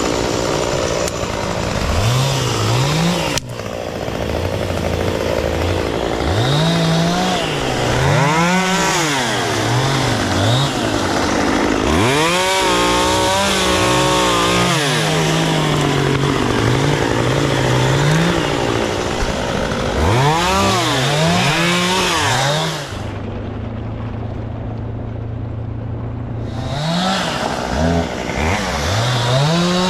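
Two-stroke chainsaw revving up and down over and over as it cuts. About three-quarters of the way through it drops to a steady idle for a few seconds, then revs again.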